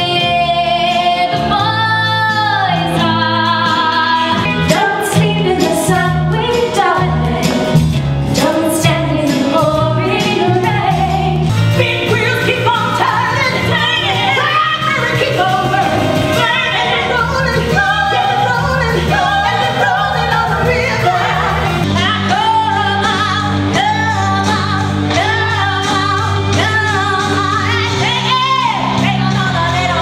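Women singing 1960s pop songs over a band accompaniment. The music changes partway through, about 22 seconds in, as one number gives way to another.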